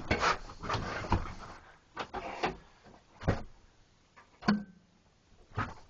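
A series of irregular knocks and clunks, about five, the loudest one about four and a half seconds in with a brief ringing tone after it.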